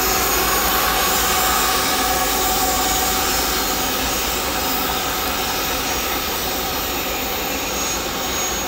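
Freight train passing, led through this stretch by a GE ES44AC diesel-electric locomotive working as a distributed-power unit: a steady, loud engine noise over the low rumble of the train, fading slightly toward the end.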